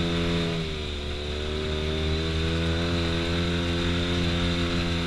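Side-by-side UTV engine running steadily under load as it climbs a rough trail. Its note dips slightly about half a second in, then holds.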